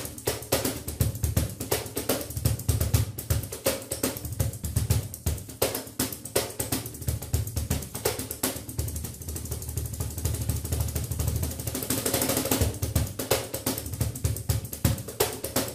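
Latin Percussion LP442F Finger Shots ganzá shakers played in a fast rhythm: a dense run of short rattling strokes, smoothing into a continuous rattle for about a second a little past three quarters of the way through.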